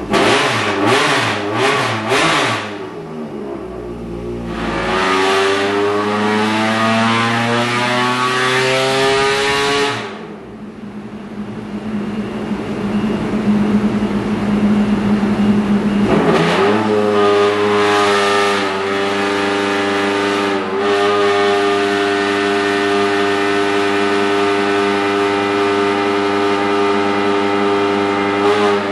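2.5-litre Millington Diamond four-cylinder race engine on a dyno under ECU mapping. Its revs climb steadily under load for several seconds and then cut off suddenly. After a few seconds it is held at a steady speed for a long stretch, as when the tuner holds a load point to map it.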